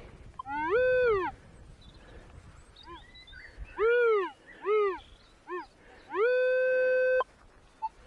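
Minelab Manticore metal detector sounding over a target: several pitched tones rise and fall as the coil passes over it, then one steady tone is held for about a second and cuts off abruptly. The target reads 92, in the range the detectorist takes for silver.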